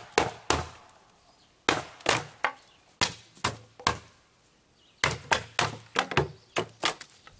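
Claw hammer striking the wooden frame of an upturned lawn chair: about fifteen sharp wooden knocks in three bursts of quick blows with short pauses between, the last burst the longest.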